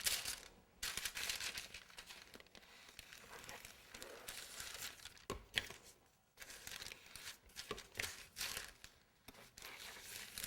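Irregular crinkling and scraping handling noises, with a few sharp clicks, as buttercream is spread around the base of the cake.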